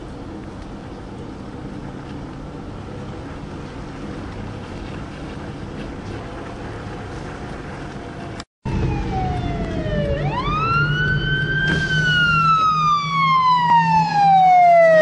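A steady low hiss for about the first eight seconds, then, after a brief cut, a fire engine's siren wailing over the low hum of its engine. The siren rises quickly and falls slowly in pitch, getting louder toward the end; it is heard from inside a car.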